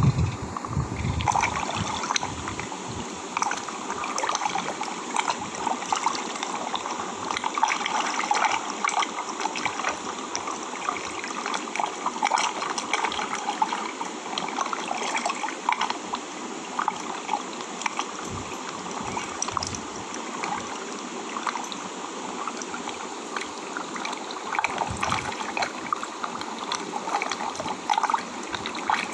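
Shallow seawater trickling and splashing over shoreline rocks, a steady wash of small splashes and crackles.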